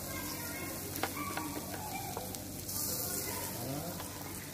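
Minced-meat kebabs sizzling steadily as they cook and brown, with a few faint clicks and pops.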